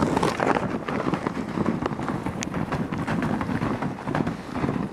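Hooves of a herd of American bison running past on snow: a dense, irregular patter of many hoof falls.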